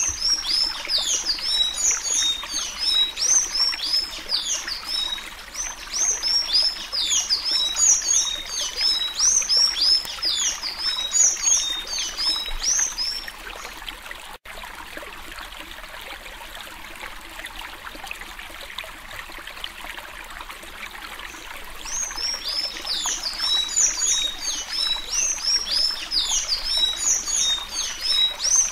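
Sanhaço (Thraupis tanager) singing its 'suí suí' song: a fast run of high, squeaky, down-slurred notes. It stops about halfway through and starts again a few seconds before the end, over a steady hiss.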